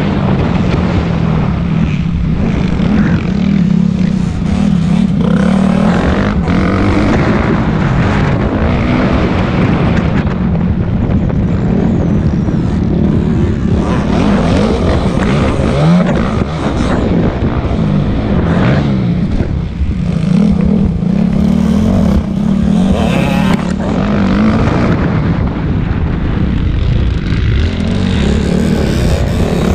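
Motocross bike engine at race pace, heard close from the bike itself, its revs rising and falling repeatedly as the rider accelerates, shifts and backs off.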